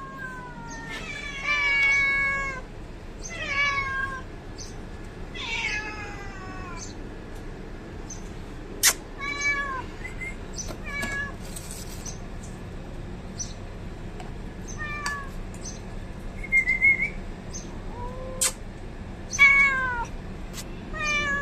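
A cat meowing again and again, about a dozen short high-pitched meows, most falling in pitch, with a few sharp clicks in between.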